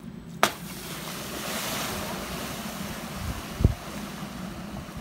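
Wind buffeting the microphone over open water, with the hissing spray of a cable-towed wakeboard cutting across the lake, strongest early on. A sharp click about half a second in and a low thump past the middle.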